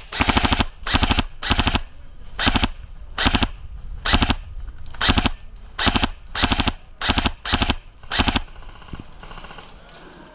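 Airsoft gun firing a dozen or so short full-auto bursts of rapid shots, about one burst a second, stopping near the end.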